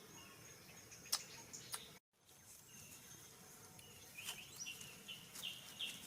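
Faint outdoor ambience with a steady high insect buzz and a couple of sharp clicks; after a brief dropout about two seconds in, small birds chirp repeatedly from about four seconds on.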